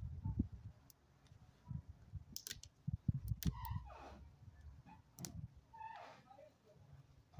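Black plastic headlight protection grille for a Land Rover Freelander being handled and worked at by hand: irregular sharp plastic clicks and rattles over low handling noise.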